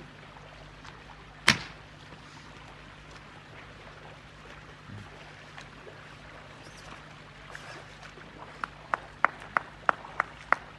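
One sharp slap about a second and a half in. From near the end, a person claps hands in a steady rhythm, about three claps a second.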